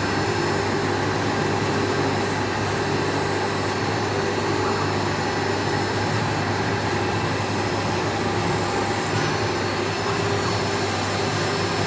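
Sesame CNC router's spindle running steadily while its small end mill cuts into a white board: a continuous machine noise with several constant tones.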